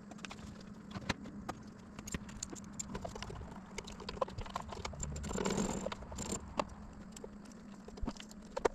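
Scattered light clicks and clinks of hand tools and metal parts being handled, over a steady low hum.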